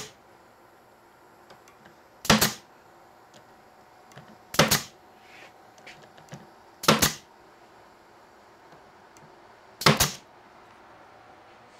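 Pneumatic nail gun firing four times, a couple of seconds apart, each a sharp shot, driving nails to tack the glued plywood top panel onto a cabinet.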